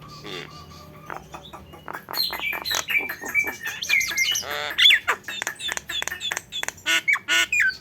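Nias hill myna calling in its tengkek buto kingfisher-style song. After a quieter first two seconds it breaks into a fast, loud run of sharp chirps, clicks and whistled notes that glide up and down.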